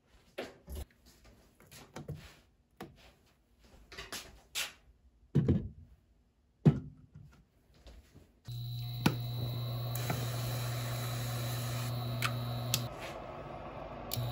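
Scattered light taps and a few sharper knocks of food and utensils being handled on a wooden cutting board. About eight seconds in, an induction cooktop switches on with a steady electric hum and fan noise, broken by a few clicks; the hum drops out for about a second near the end and comes back.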